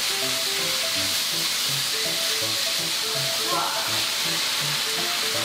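Food sizzling in hot oil in a pan, a steady hiss, under background music of short, evenly spaced low notes.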